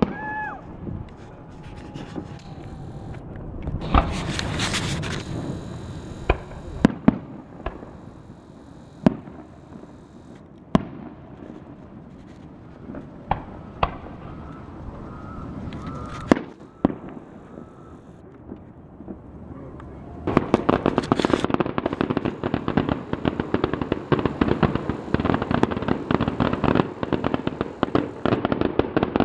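Aerial fireworks show: scattered single bangs of bursting shells with a short whistle near the start, then from about two-thirds of the way through a dense, continuous crackling of many small reports.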